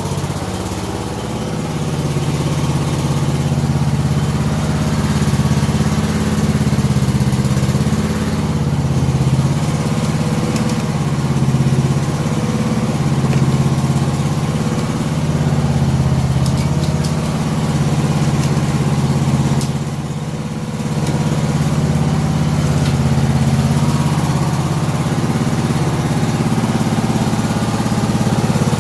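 Toro LX420 lawn tractor engine running steadily after it finally started, its note swelling and easing a little, with a brief dip about twenty seconds in.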